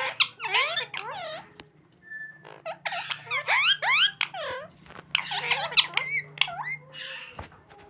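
Pet parrot chattering in bursts of rapid, squeaky chirps that sweep up and down in pitch, pausing briefly about two seconds in and again near the end, over a faint low hum.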